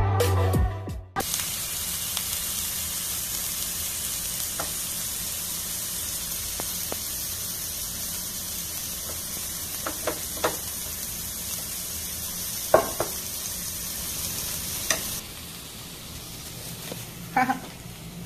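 Ground-beef burger patty sizzling on a ridged grill pan, a steady high hiss with a few sharp clicks. The sizzle drops quieter about fifteen seconds in. Electronic music is heard for the first second before it cuts off abruptly.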